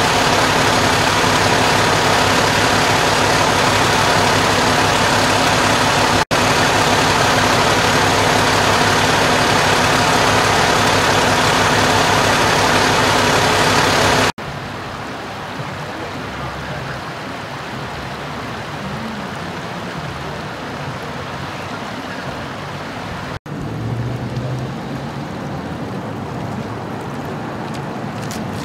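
Fire engine's diesel engine idling steadily close by, a loud, even hum. About halfway through it drops to a quieter steady rumble.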